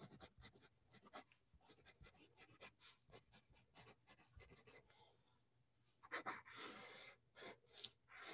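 Pencil writing on lined notebook paper, heard as quick faint scratching strokes as letters are formed. About six seconds in come longer, louder scratches as straight lines are drawn.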